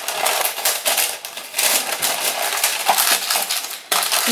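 Paper and packaging rustling and crinkling close up, with many rapid crackles, as the contents of a cardboard beauty box are handled.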